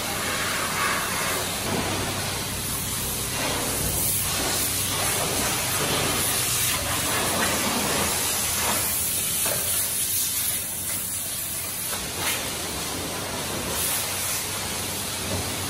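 High-pressure rinse water hissing steadily from a self-serve car wash spray wand as it blasts slush off a car's bumper and body, over a faint steady low hum.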